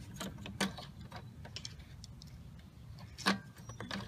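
Light plastic clicks and ticks of a hand working the oil-filler dipstick cap on a Honda GCV160 lawn mower engine, with a sharper click about three seconds in.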